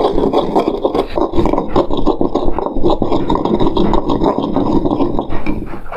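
Pestle grinding dried oregano and mixed peppercorns in a glazed clay molcajete: fast, continuous rasping scrapes, grinding the spices to powder.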